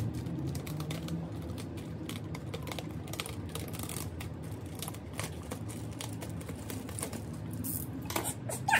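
Clear plastic bag crinkling and crackling as the boxed figure inside it is handled, a steady run of small crackles with a few louder rustles near the end.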